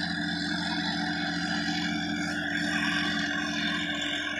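Sonalika DI-50 RX tractor's diesel engine running steadily under load while it pulls a rotary tiller through dry soil.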